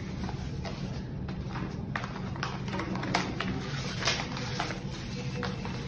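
Paper rustling and crinkling as a stack of printed sheets is slid out of a paper envelope: irregular sharp crackles and ticks over a steady low hum.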